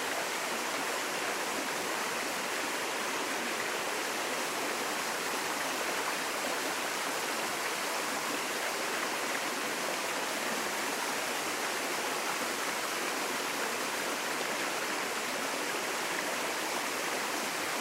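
Small forest waterfall and its stream pouring into a rock pool: a steady, even rush of falling water.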